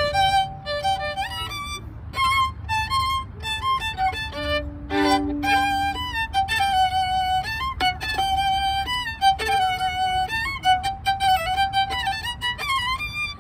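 Violin playing a melody, with some notes sliding from one pitch to the next.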